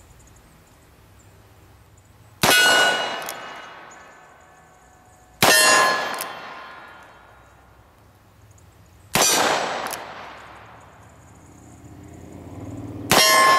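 Four shots from a Colt Single Action Army revolver in .45 Colt, fired slowly, about three to four seconds apart. Each shot is followed at once by a steel target clanging and ringing out for a second or two.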